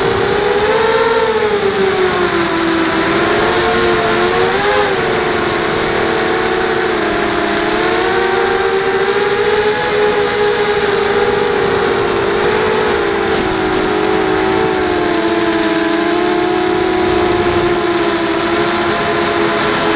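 Brushless RCX motors and propellers of a 240-size FPV racing drone whining, recorded from the drone's own onboard camera. The pitch wavers up and down continuously as the throttle changes, with the motors' slightly different notes heard together over a rush of prop wash.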